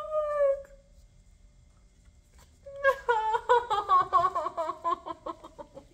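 A woman's high-pitched, wordless squeal of delight, twice: a short one at the start and a longer one about three seconds in that wavers and slowly falls in pitch.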